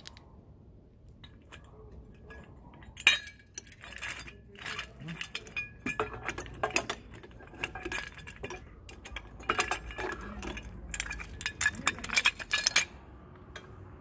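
Irregular metallic clinks and clatter of metal tools and parts being handled and knocked together. The clinks come in quick clusters from about three seconds in until near the end.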